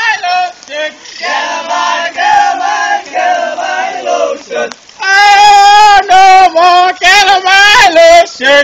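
A group of people singing together as they walk, a chant-like group song that becomes much louder about five seconds in as the singers come close.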